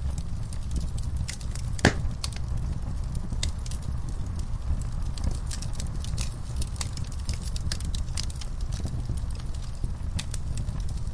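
Logs burning in a fireplace, crackling with many sharp pops over a steady low rumble. One louder pop comes about two seconds in.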